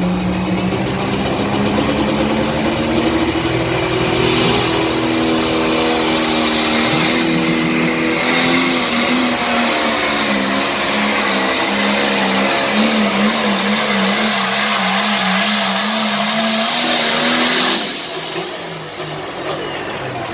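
Turbocharged John Deere diesel pulling tractor at full throttle dragging a weight sled down the track. The engine note climbs over the first few seconds with a rising turbo whine, then wobbles up and down as the tractor bounces and works against the load. It cuts back sharply near the end as the pull finishes.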